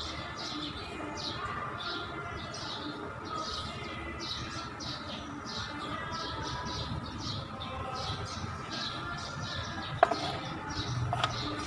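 A small bird chirping over and over in short, high, falling notes, about two or three a second, with a single sharp click about ten seconds in.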